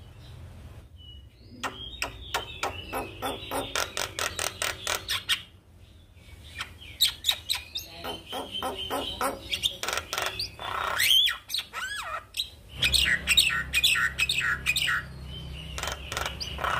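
Javan myna singing: rapid, harsh clicking chatter in three runs with short breaks between, with a few rising whistles in the middle. A steady low hum comes in about two-thirds of the way through.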